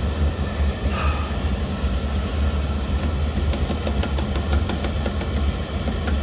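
Oil burner firing: a steady low rumble from the burner's motor, blower and flame. Scattered light clicks or ticks, more frequent in the second half.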